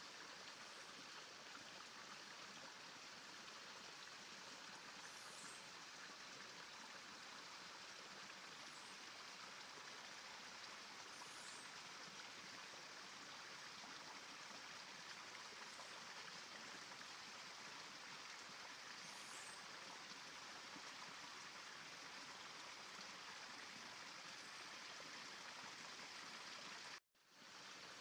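Near silence: a faint steady hiss that cuts out for an instant about a second before the end.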